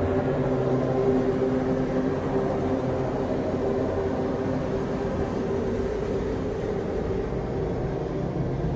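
A steady low droning rumble with a few held tones in it, even in level.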